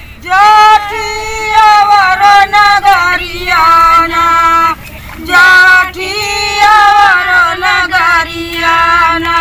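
Women singing a kajari folk song without instruments, in long drawn-out phrases with short breaks between them.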